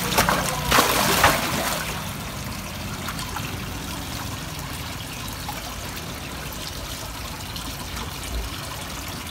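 Water splashing sharply a few times in the first second or two as large predatory fish strike at food at the pond surface, then a steady trickle of running water.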